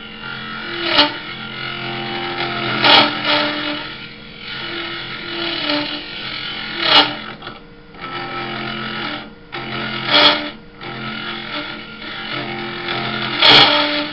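Wood lathe running while a hand-held turning tool cuts into the inside of a spinning ash stave-built mug blank, hollowing it out: a steady cutting noise over the lathe's hum, with five brief louder scrapes as the tool bites harder.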